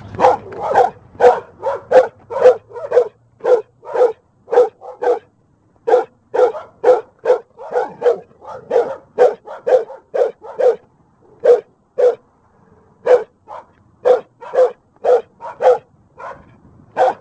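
Dog barking behind a fence, short repeated barks at about two a second with a few brief pauses.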